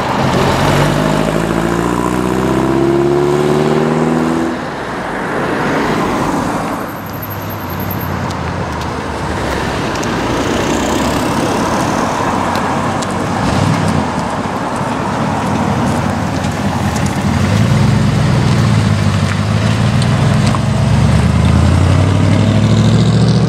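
Volkswagen Karmann Ghia's air-cooled flat-four accelerating away, its note rising over the first few seconds. Near the end a Ford Mustang II drives slowly past, its engine running low and steady.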